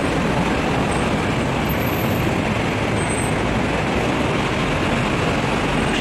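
Steady city road traffic noise, an even rush of buses and cars, with no single vehicle standing out.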